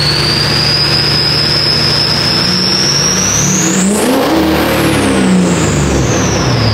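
Duramax V8 turbo-diesel being revved, its turbocharger giving a loud, jet-like whistle. The whistle holds high and creeps up, climbs sharply about four seconds in as the engine is revved harder, then falls away as the revs come down.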